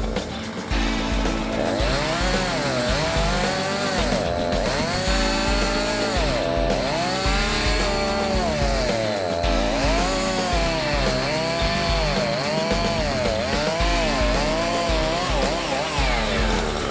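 Chainsaw cutting, its engine revving up and down over and over, over background music with a steady beat.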